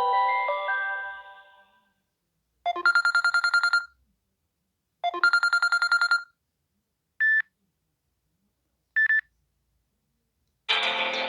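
Samsung Galaxy Wide3 phone ringtones played in turn. A melodic tone fades out, then a fast trilling telephone-style ring sounds twice, each about a second long. Two short single beeps follow, and a new melodic ringtone starts near the end.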